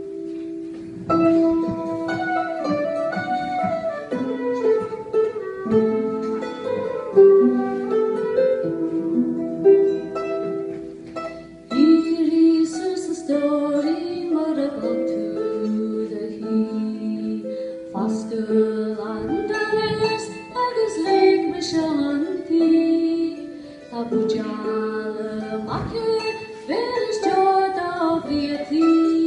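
A slow traditional Irish air played on harp and flute, the harp plucking under long, held melody notes. From about twelve seconds in a woman sings the song in Irish over the harp accompaniment.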